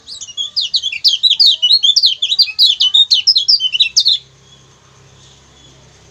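Kecial kuning (a yellow white-eye) calling a fast run of sharp, high 'ciak ciak' chirps, about five a second, which stops abruptly about four seconds in.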